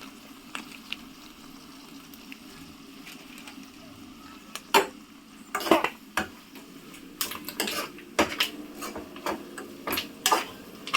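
A spoon stirring boti (goat tripe) fry in a frying pan, clinking and knocking against the pan, over a soft steady sizzle of the oil. The clinks come scattered from about five seconds in.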